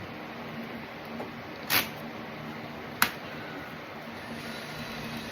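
Two short, sharp clicks from hand tools working on the engine bay, one about a second and a half in and a louder one about three seconds in, over a steady low background hum.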